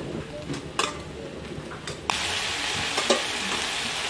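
Raw chicken pieces spooned from a stainless-steel bowl into hot butter and oil in a pan, with a few clinks of spoon on bowl. About two seconds in the frying sizzle jumps suddenly louder and stays steady as more chicken lands in the hot fat.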